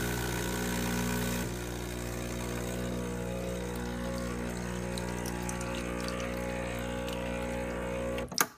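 Breville Barista Express espresso machine's pump running with a steady buzzing hum and some hiss over it. The hiss eases about a second and a half in, and the hum stops with a click near the end.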